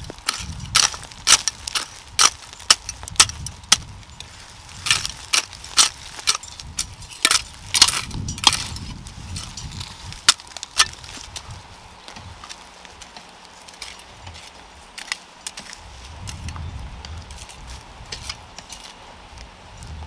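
Weeds and grass pulled by hand from dry, stony soil: a string of sharp crackling snaps as the roots tear loose, about two a second for the first ten seconds or so, then only faint scattered rustles.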